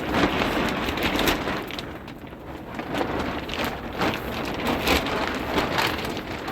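Rain falling, the noise swelling and easing every second or so.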